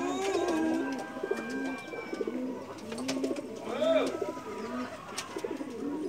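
Domestic pigeons cooing, several overlapping in a repeated low coo, with one louder call about four seconds in.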